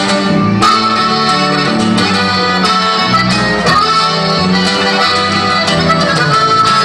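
Norteño trio playing an instrumental passage live, with the accordion carrying the melody over guitar and electric bass.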